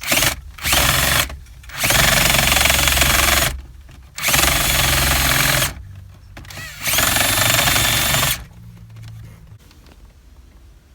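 Power drill run in five bursts, boring a hole for a push-start button in the car's interior trim. The first two bursts are short and the last three each last about a second and a half.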